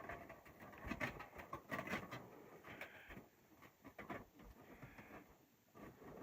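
Faint, irregular clicks, taps and rustling, like something being handled up close.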